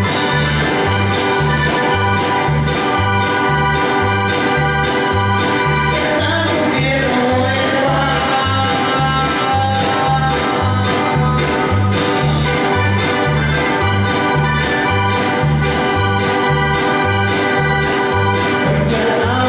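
Cumbia band playing live: sustained chords over a steady, repeating bass and percussion beat.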